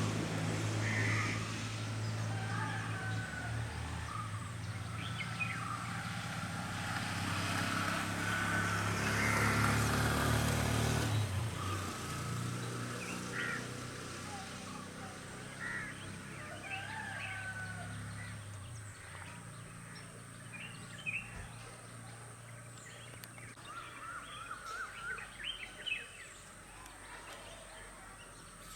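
A motor vehicle's engine hum, loud at first and fading away over the first half, with assorted birds calling throughout; near the end comes a quick run of short calls.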